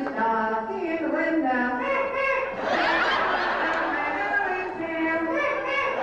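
Ventriloquist's high-pitched falsetto puppet voice chattering and giggling, with a short burst of laughter about three seconds in.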